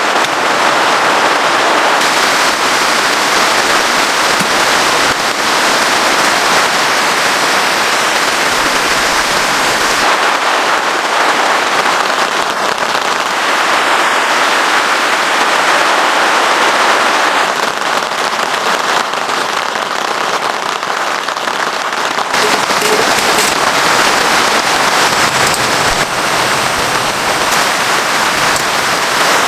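Heavy rain pattering densely and steadily, its texture changing abruptly a few times.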